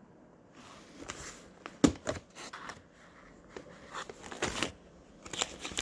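Plastic vacuum-sealer bag being handled, crinkling and rustling, with scattered clicks and knocks; a sharp click a little under two seconds in is the loudest sound.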